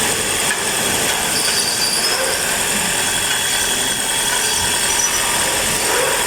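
2020 Toyota Camry hybrid's 2.5-litre four-cylinder engine running steadily at idle, its cylinder 4 misfire cleared by the new injectors and intake manifold, no longer vibrating.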